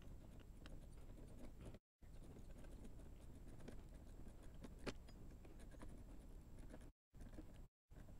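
Near silence with faint scratching and small metallic clicks from hands fitting the silencer's clamp and bolt onto the link pipe, with one slightly louder click about five seconds in. The sound drops out to dead silence briefly three times.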